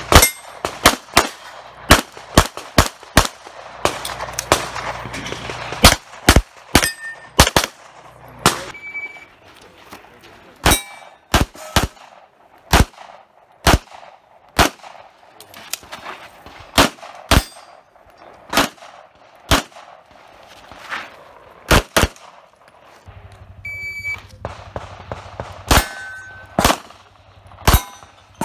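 Handgun shots fired in rapid strings, some followed by the ring of steel targets being hit. Twice a short high electronic beep comes a second or two before a new string begins, fitting a shot timer's start signal.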